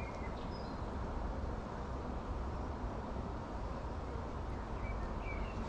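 Steady low outdoor background rumble, with a few faint short high chirps near the start and again near the end.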